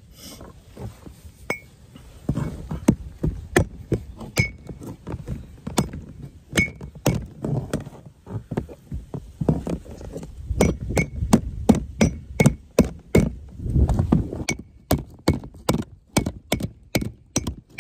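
Hammer striking the thin aluminum skin of a pop-up camper roof, backed by a heavy iron plate, to flatten a curled tear: a long series of sharp metallic knocks, some with a short ring. The blows are scattered at first, then come quicker, about three a second, from about halfway through.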